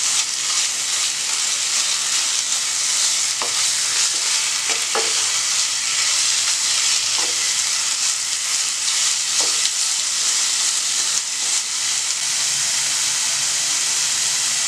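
Minced chicken with chopped onion, ginger and garlic sizzling in oil in a nonstick pan while it is stirred with a wooden spoon, with a few light knocks of the spoon against the pan.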